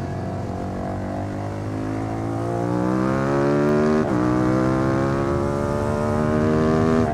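Suzuki SV650 V-twin exhaust, miked close to the muffler, accelerating. The revs climb steadily and drop sharply at an upshift about four seconds in, then climb again to another shift near the end.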